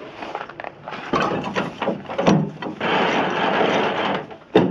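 Footsteps crunching on packed snow with irregular scuffs, then a single sharp metallic click near the end.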